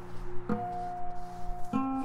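Background music: held plucked-string and keyboard notes, with new notes struck about half a second in and again near the end.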